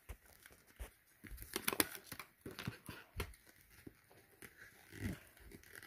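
Small cardboard hand-spinner box being handled and opened by hand: quiet rustling and scraping of the card with scattered light clicks and taps.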